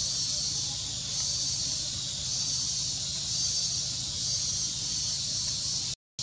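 A steady high-pitched insect drone, swelling and easing about once a second, over a low rumble; the sound cuts out for a moment near the end.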